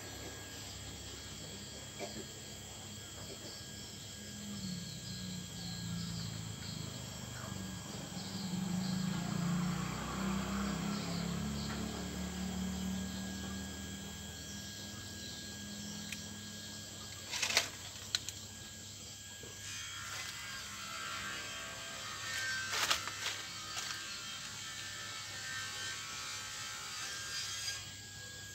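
Kelulut (stingless bees) buzzing in flight around the entrance hole of their wooden hive box, a low wavering buzz that swells for a while and then fades. A couple of sharp knocks come in the second half.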